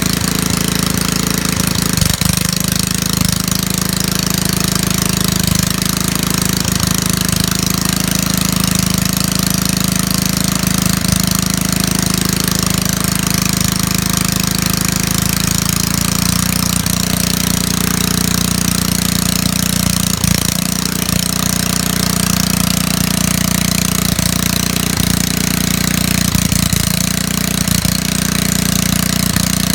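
Small 1.7 kW petrol generator running steadily under electrical load. Its engine note shifts about halfway through.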